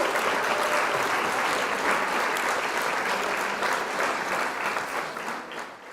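Crowd applause: many hands clapping steadily, fading out near the end.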